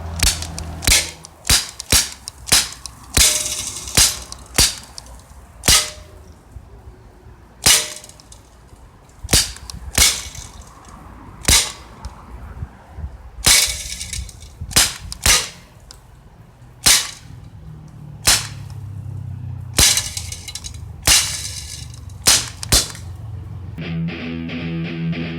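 Daisy Powerline 415 CO2 pistol firing about two dozen sharp pops, in quick irregular runs with short pauses, as pellets strike a steel tomato can. Guitar music comes in near the end.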